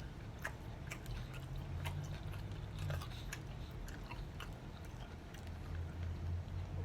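A man chewing and biting spicy chicken wings close to the microphone, with small wet mouth clicks and smacks scattered throughout, over a steady low hum.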